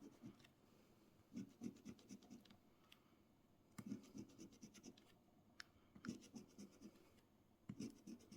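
A coin scratching the latex coating off a scratch-off lottery ticket, faintly, in about five short bursts of quick strokes with brief pauses between them.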